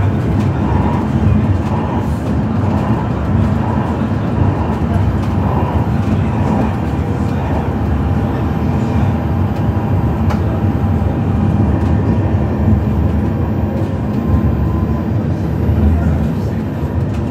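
Interior running noise of an Alstom Citadis Dualis tram-train at speed: a steady low rumble of wheels on rail and the car's running gear.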